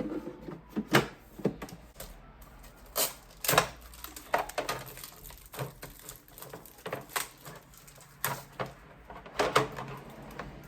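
Parts of an espresso machine being handled and fitted into place: a string of irregular clicks and knocks, the loudest at the very start.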